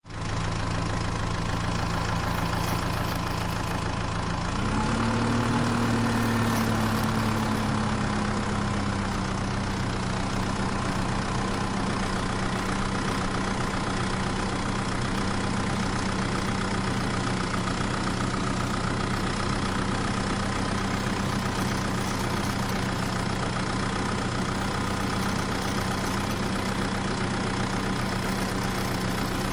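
An engine running steadily at idle, its pitch rising about four to five seconds in and then settling a little lower for the rest.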